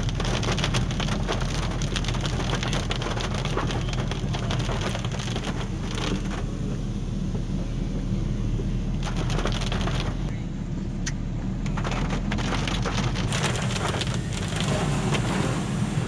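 Steady road noise of a car driving on a wet road, a low rumble from the tyres and engine with frequent crackling over it.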